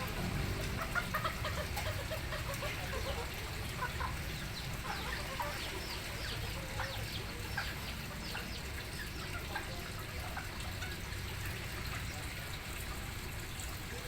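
Bantam chickens (ayam kate) clucking and calling, many short calls overlapping throughout, over a steady low background rumble.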